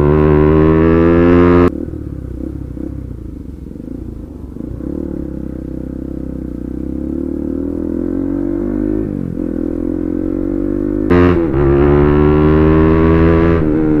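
Motorcycle engine with its exhaust dB killer removed, rising in pitch under hard acceleration; less than two seconds in the throttle shuts suddenly and it runs much quieter for about nine seconds, then the throttle opens sharply and it climbs in pitch again.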